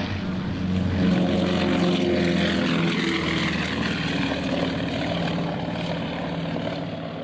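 Lockheed C-60 Lodestar's twin radial engines running steadily as it flies past. The sound grows louder about a second in, then fades toward the end.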